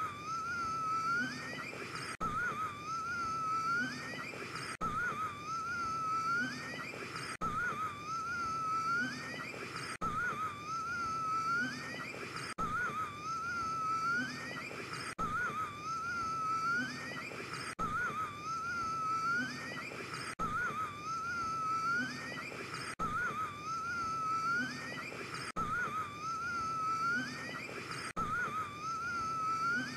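A man's wheezing, gasping breaths with a thin whistling tone that wavers and climbs at the end of each breath. The same short gasp is looped, repeating about every two and a half seconds with a brief break at each joint.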